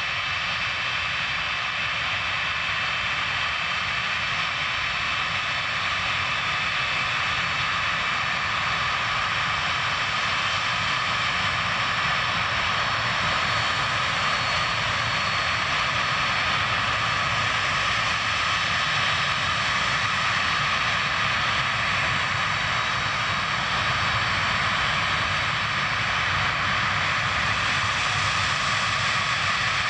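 The four D-18T turbofan engines of an Antonov An-124-100 taxiing: a steady jet whine with several high held tones over a continuous rushing noise.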